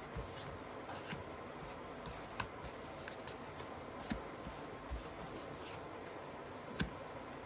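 Faint scattered clicks and slides of divination cards being spread out, drawn and laid down on a cloth-covered table. About half a dozen light taps, the sharpest one near the end.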